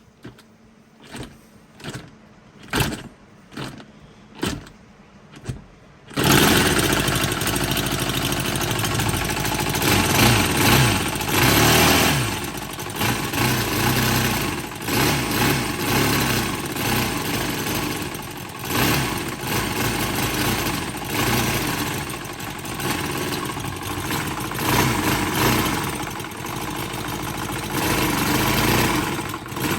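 Panther Pup 45cc air-cooled four-stroke four-cylinder model engine being started. It gives a run of separate short bursts for about six seconds, then catches and keeps running, its speed rising and falling. It runs with rattles that the owner puts down to worn timing gears.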